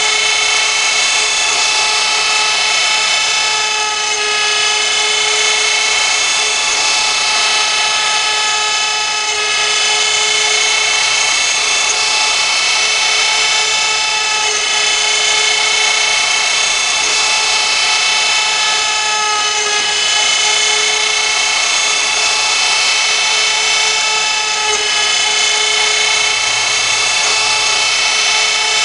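CNC router spindle running with a steady high whine over a hiss of cutting noise as it machines a workpiece; the sound dips slightly every few seconds.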